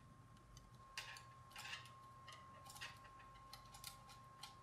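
Near silence broken by faint, scattered small clicks and taps of plastic blaster parts being handled while a Chicago bolt is threaded into the barrel hinge, over a faint steady high tone.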